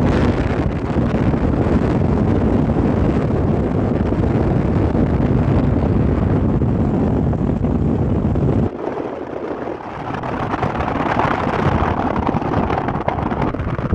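Wind buffeting the microphone of a phone filming from a moving car, a steady rushing noise with road noise under it. The low rumble drops away suddenly a little under nine seconds in, then builds back over the next few seconds.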